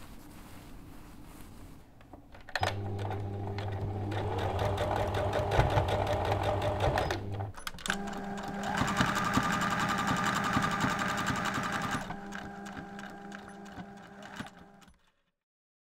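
Electric sewing machine stitching fabric in two runs of rapid needle strokes with a steady motor hum, with a brief stop between them, then easing off.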